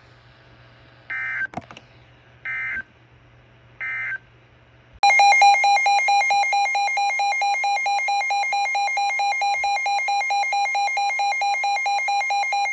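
Emergency Alert System signalling: three short bursts of screechy digital data tones about a second and a half apart. About five seconds in, the loud, steady two-tone EAS attention signal begins and holds until it cuts off at the end.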